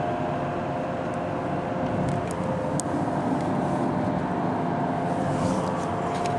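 Steady road noise of a car driving at speed, heard from inside the cabin: engine and tyre rumble with a steady hum over it.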